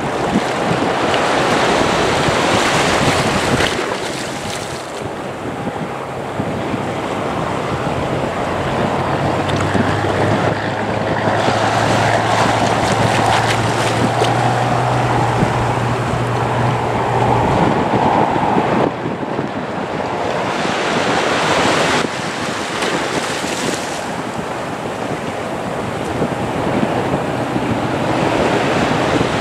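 Heavy wind noise buffeting the microphone. Under it, from about ten seconds in to about seventeen seconds, there is a steady low hum with a whine above it, typical of a jet airliner's engines.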